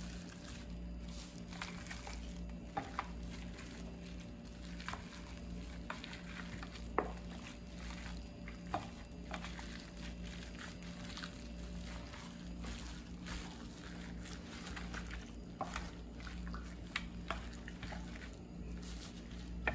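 Wet squishing and plastic-glove crinkling as raw chicken pieces are rubbed with marinade in a steel tray, with a few sharp clicks scattered through, over a steady low hum.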